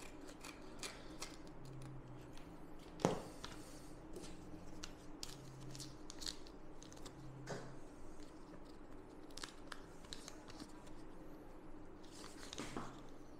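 Scissors snipping a strip of kinesiology tape, then the tape's paper backing being torn and peeled, giving faint scattered crackles and small clicks, with one sharper click about three seconds in.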